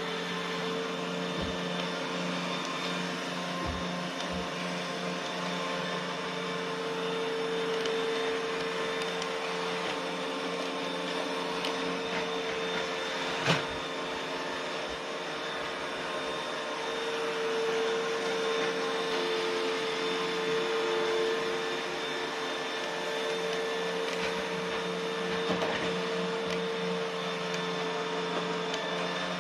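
Roomba robot vacuum running, a steady motor hum and whine. There is a single sharp knock about halfway through, and a few faint ticks in the first few seconds.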